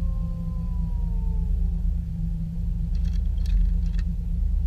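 Boat motor running steadily with a low drone. In the first couple of seconds a long tone slides slowly downward over it, and a few short clicks or rattles follow about three seconds in.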